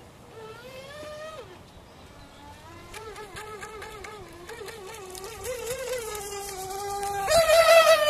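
Electric RC speedboat's motor whining, its pitch rising and falling with the throttle. It gets loud near the end as the boat runs in close.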